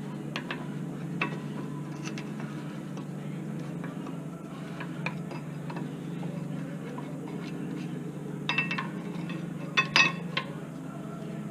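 Metal clinks and scrapes as rear disc brake pads are pried out of the caliper bracket with a tool. The clicks are scattered at first, then a denser cluster of louder clinks comes about three-quarters of the way through, over a steady low hum.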